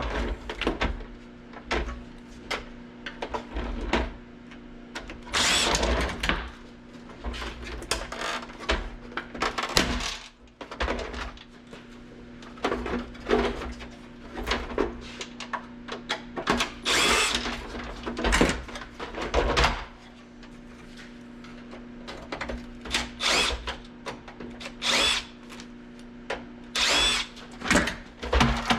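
A dehumidifier being taken apart for scrap: irregular knocks, clatter and scraping of its parts, some bursts a second or so long. A steady low hum runs underneath.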